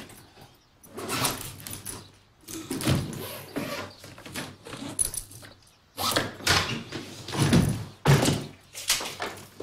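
A hard-shell suitcase being closed and handled: a series of thuds and knocks as it is shut, lifted and set down, loudest during a few seconds in the second half.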